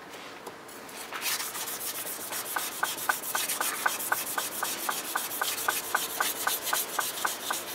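Steel blade of a Tosa-style kitchen knife stroked rapidly back and forth on a wet whetstone, a scraping rub repeating about four to five times a second, starting about a second in.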